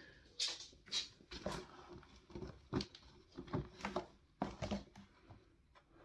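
Two small cats scrabbling at a cardboard box and the paper sheet inside it: scattered soft rustles and light taps of paws on paper and cardboard.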